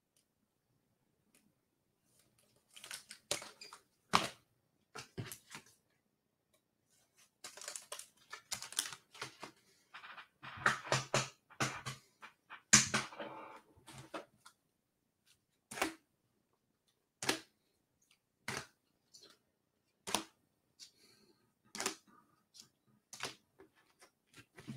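Trading-card packaging being handled: bursts of rustling and crinkling with sharp clicks, then single clicks about every second and a half. This fits a blaster box and its packs being opened.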